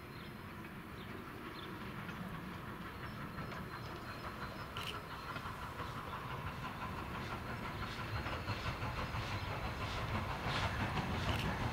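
Steam train approaching and growing steadily louder, with the clatter of its wheels over the rail joints coming in over the last few seconds.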